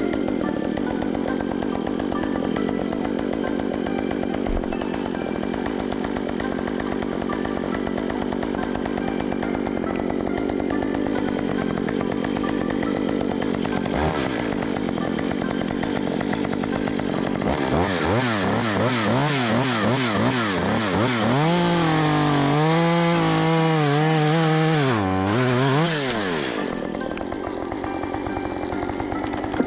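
STIHL MS 194 TC two-stroke top-handle chainsaw running at a steady low speed. About two-thirds of the way through it is revved hard for around nine seconds, its pitch swinging up and down, then it drops back to its earlier low running.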